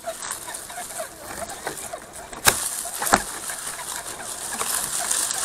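Redcat Gen7 RC crawler truck rolling over a rough mountain trail, with two sharp knocks as it jolts over rocks about two and a half and three seconds in. Small bird chirps sound among the trail noise.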